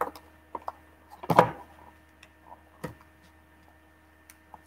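Plastic packaging being worked open by hand: a few scattered clicks and rustles, with one louder dull knock about a second and a half in.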